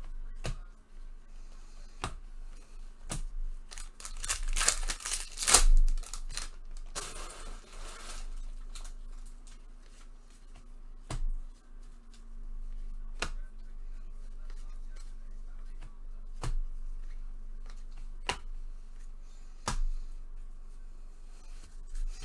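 Packs of baseball cards being opened and the cards handled: sharp clicks and taps of cards set down every second or two, with a stretch of wrapper tearing and crinkling from about four to eight seconds in. A faint steady hum runs underneath.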